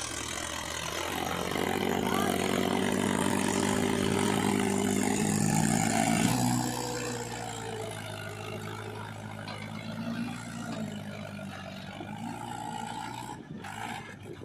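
Diesel engine of heavy earth-moving machinery working under load. It grows louder over the first few seconds and eases back about seven seconds in.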